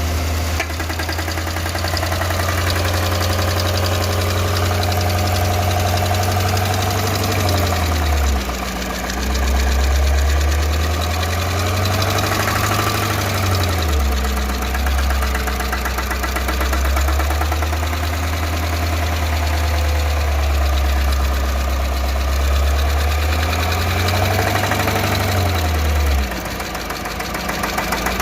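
2014 GMC engine idling with a fast, steady ticking from the valve lifters. The idle speed dips and recovers a few times.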